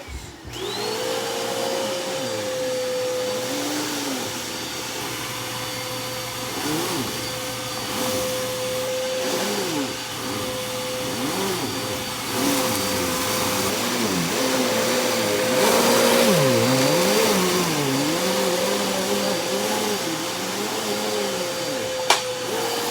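Dirt Devil Breeze Cyclonic vacuum cleaner switched on and running, its motor spinning up to a steady whine, with a lower tone that wavers up and down. A sharp click near the end as it is switched off, and the motor starts to wind down.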